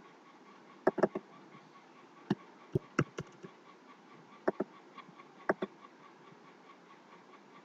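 Computer mouse and keyboard clicks: about ten short, sharp clicks, some in quick pairs, spread through the first six seconds, over a faint steady hiss.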